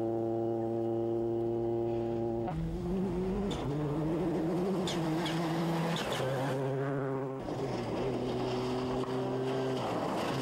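Ford Focus World Rally Car engine held at steady high revs. About two and a half seconds in, a rush of tyre and loose-surface noise with several sharp cracks breaks in. The engine pitch drops and steps up and down through gear and rev changes, then settles steady again near the end.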